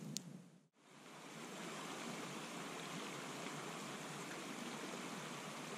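A campfire gives a single sharp pop at the start and fades out. About a second in, the steady rush of a flowing river fades in and holds even.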